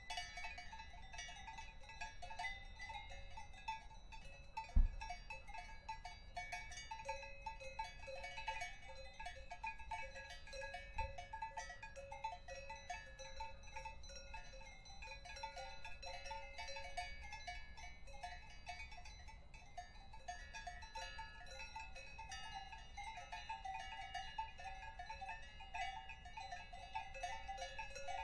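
Several cowbells clanking irregularly and overlapping in a continuous jangle. Two dull low thumps, about five and eleven seconds in, the first the loudest moment.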